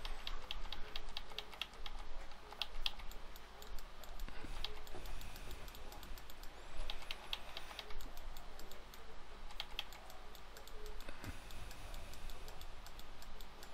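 Computer keyboard keys clicking in quick, irregular runs of taps with short pauses between, over a faint low hum.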